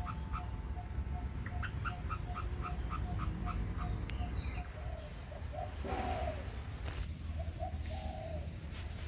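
A kra-chon, a small squirrel-like mammal, calling: a rapid, even series of short chirps, about three to four a second, then a few louder, irregular notes. There is a brief rustle about six seconds in.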